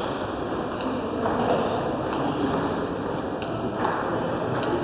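Table tennis hall ambience: a steady din of the large hall with a few faint ping-pong ball clicks from other tables and several short high-pitched squeaks, like sports shoes on the wooden floor.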